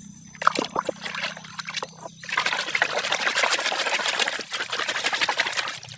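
A hand splashing and swishing plastic toy vehicles in a tub of muddy water to wash them. First a few separate splashes, then about three and a half seconds of continuous churning splashing that stops just before the end.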